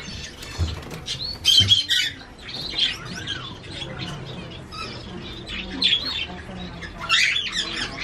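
Many caged parrots and other pet birds squawking and chirping, with overlapping short, shrill calls throughout and louder bursts about one and a half seconds in and again about seven seconds in.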